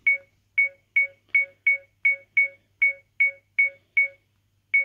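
Button beeps from a 70mai Pro Plus (A500) dash cam as its + key is pressed over and over: about a dozen short, identical high beeps, a little under three a second, with a longer gap before the last one near the end.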